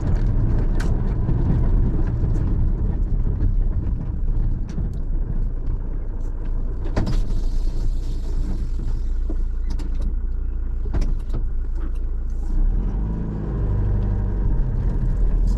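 A car driving, with a steady low engine and road rumble and scattered short knocks and rattles.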